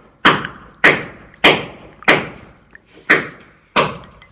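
Loud, regular hammer blows from masons' construction work, about one and a half a second, each a sharp thud that dies away quickly.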